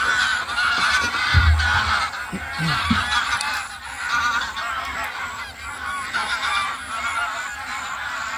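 A large flock of wild geese honking continuously, many calls overlapping, with a brief low bump about a second and a half in.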